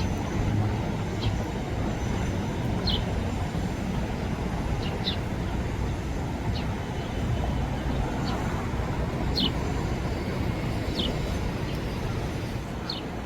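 Steady city traffic rumble, with short high chirps scattered through it every second or two.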